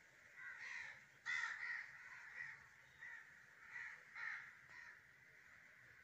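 A flock of crows cawing: a run of separate, overlapping caws, the loudest a little over a second in, over a steady background of more distant calling.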